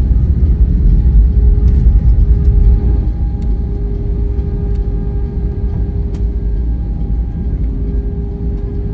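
Cabin noise of an Airbus A320 rolling out on the runway after touchdown: a heavy low rumble from the landing roll and engines, loudest for about the first three seconds and then easing as the aircraft slows. A steady hum sits underneath.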